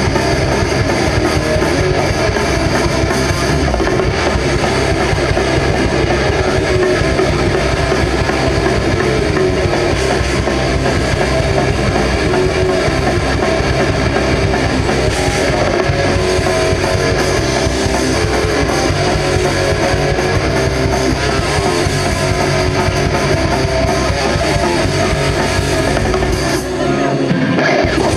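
Live rock band playing loud, with electric guitars, bass guitar and a drum kit. The low end drops out for a moment near the end.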